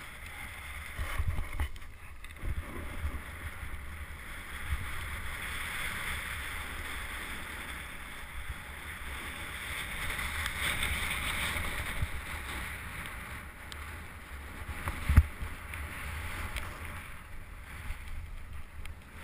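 Wind buffeting a helmet-mounted camera's microphone, over the hiss of a rider sliding and carving on snow, which swells and fades with speed. A sharp thump about 15 seconds in, the loudest thing here.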